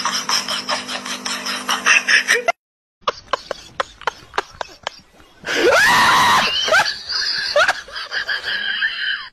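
Clicks and rustling, then from about halfway a person's loud laughing and shrieking, with rising squeals.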